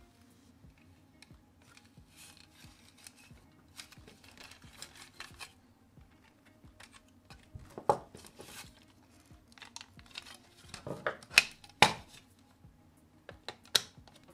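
Parts of a small die-cast model car being handled and pulled apart: light rustling and small clicks, with a sharp knock about eight seconds in, a cluster of three around eleven to twelve seconds, and one more near the end.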